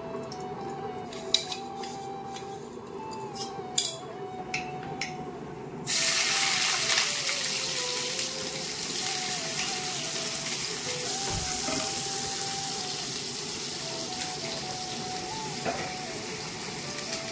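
Sliced onions hit hot oil in a steel kadai and start sizzling suddenly about six seconds in, a loud hiss that slowly eases off. Before that, a few light metallic clicks of a steel spoon against the steel oil container.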